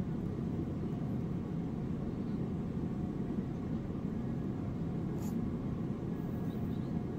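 Steady low background rumble, even throughout, with a faint brief high hiss about five seconds in.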